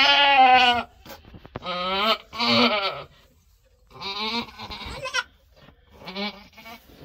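Boer goat bleating, about five wavering calls of half a second to a second each, with short pauses between them.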